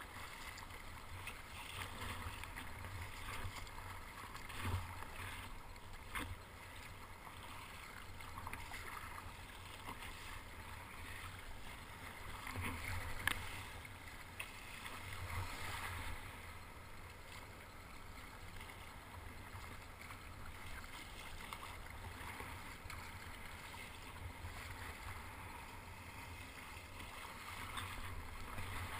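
Sea water splashing and sloshing around a plastic sit-on-top kayak's hull and paddle blades as it is paddled through choppy surf, over a steady low rumble. A few sharper splashes stand out, the loudest about 13 seconds in.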